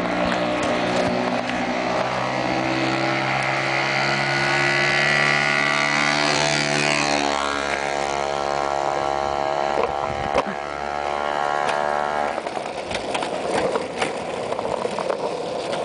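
A motor engine running steadily, its pitch sinking slightly in the second half before it stops suddenly about twelve seconds in. After that comes a rougher rushing noise with scattered clicks.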